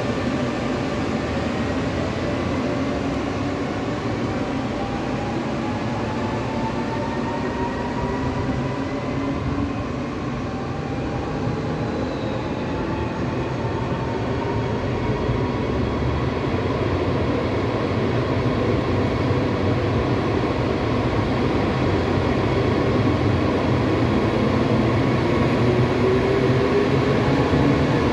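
Taiwan Railway electric locomotive E504, a Toshiba-built E500 class, starting a six-car push-pull train: its VVVF traction inverter whines in several tones that climb slowly in pitch as it gathers speed. Under the whine is a steady rumble of the motors and wheels, growing louder as the locomotive draws near.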